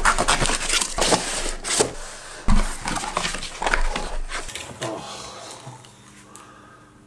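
Packaging being handled and opened: scraping, rustling and tearing, dying away over the last couple of seconds.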